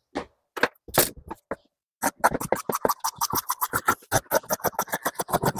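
Scissors cutting a strip of upholstery material along a marked line. A few scattered scrapes and clicks come first, then from about two seconds in a fast, even run of snips, about eight or nine a second.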